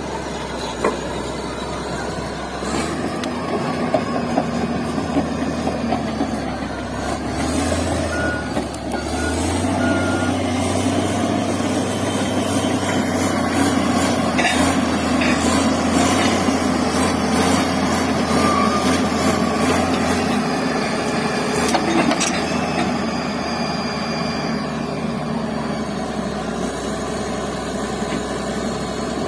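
Crawler bulldozer's diesel engine working hard, its pitch rising about a third of the way in, holding, then easing back, with a few sharp clanks.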